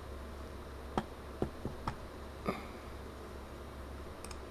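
Several sharp computer mouse clicks between about one and two and a half seconds in, and a faint double click near the end, over a steady low hum.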